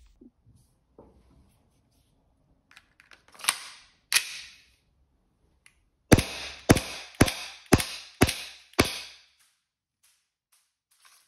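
Tokyo Marui Samurai Edge gas-blowback airsoft pistol: two sharp handling clacks, then six rapid shots about half a second apart, each a sharp gas report with the slide's blowback clack. The slide then stays locked open, the sign of an emptied magazine.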